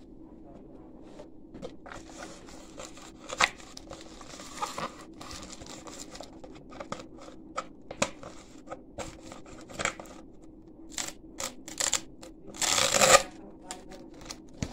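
Objects being handled close to the microphone: irregular clicks and taps with crinkling, rustling, and a louder rustle about twelve and a half seconds in that lasts under a second.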